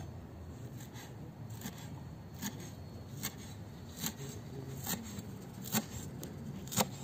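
Chef's knife chopping dill on a wooden cutting board: a series of sharp knife taps on the board, about one a second.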